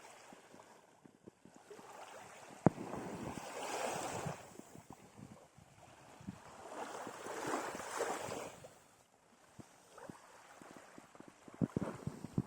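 Small waves of the Sea of Azov washing up on the beach, two swells of surf a few seconds apart, with wind on the microphone. There are scattered clicks and a sharp knock about three seconds in.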